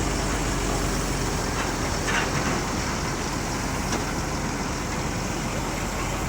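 Heavy diesel engine running steadily, with a brief higher-pitched hiss about two seconds in.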